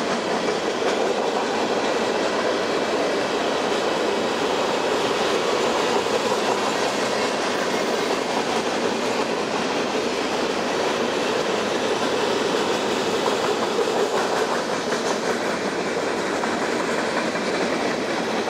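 Empty covered hopper cars of a long freight train rolling past: the steady rumble and rattle of steel wheels on the rails.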